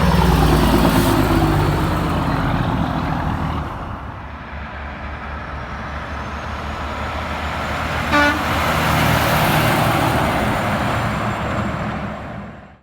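Heavy truck passing close with its engine pitch dropping as it goes by, then road and engine noise building as another truck approaches and gives one short horn blast about eight seconds in. The sound cuts off suddenly near the end.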